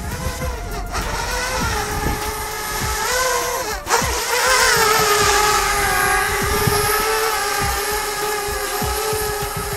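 Parrot Bebop quadcopter's motors and propellers whining in flight, the pitch wavering with throttle changes and swooping up about four seconds in as the motors speed up, then holding steady.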